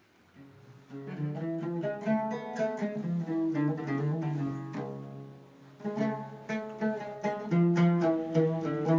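A plucked string instrument playing the instrumental introduction to a song, starting about a second in. It thins out briefly around the middle, then comes back louder.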